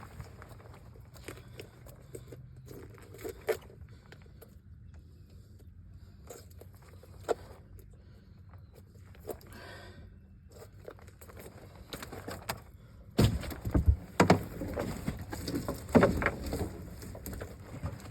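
Knocks and rattles in a fishing boat as a net is worked, with a flurry of loud thumps and clatter about thirteen seconds in.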